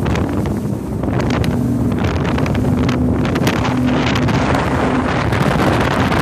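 Wind buffeting the microphone in gusts over the steady drone of a bass boat's outboard motor running underway.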